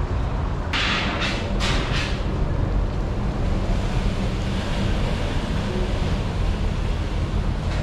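Steady low rumble of running machinery, with three short hissing bursts about a second in.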